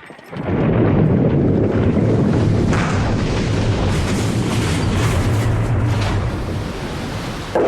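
A loud, steady rumbling noise that starts suddenly a moment in and holds, with a low hum running under it.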